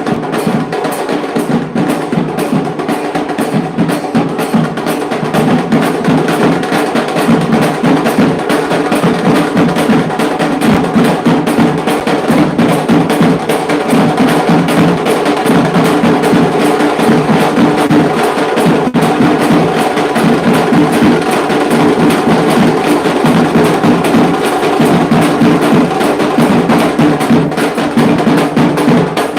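Dhol tasha ensemble drumming: fast, dense tasha stick strokes over the beat of the barrel-shaped dhol drums, loud and continuous without a break.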